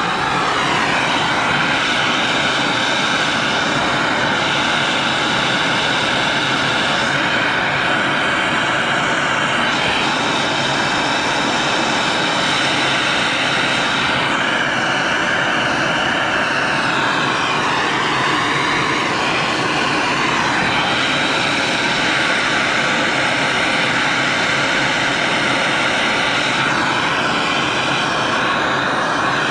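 Hose-fed gas torch burning with a loud, steady hiss as its flame heats the copper sweat joints on a brass boiler air separator.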